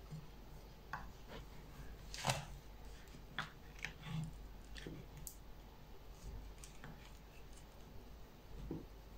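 Faint scattered taps and scrapes of a table knife and a metal star-shaped cookie cutter working crumbly oat cookie dough on a wooden cutting board, with a louder tap about two seconds in.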